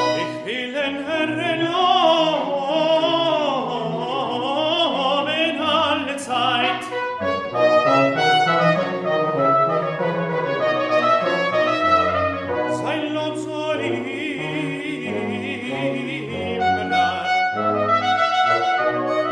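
Baroque sacred cantata: a tenor sings with vibrato over a period ensemble of baroque trumpet, violins, serpent and basso continuo.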